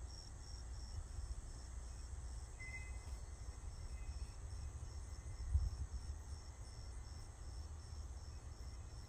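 Night insects chirping outdoors, a high pulse repeating about three times a second, over a low steady rumble.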